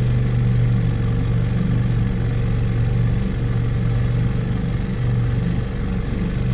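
A 6-horsepower outboard motor running steadily at trolling speed with a low, even drone.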